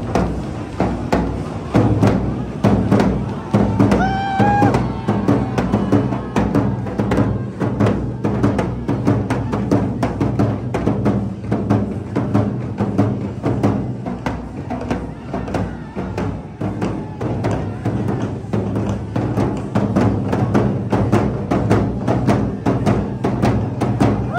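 Large double-headed bass drums on wheeled stands are beaten hard and fast with sticks in a dense, driving rhythm. One brief high-pitched call cuts through about four seconds in.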